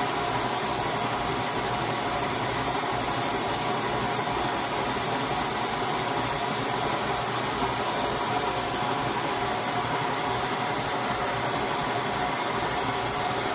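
BernzOmatic trigger-start propane torch on a handheld gas canister, its flame burning with a steady hiss while it heats a rusted exhaust bolt.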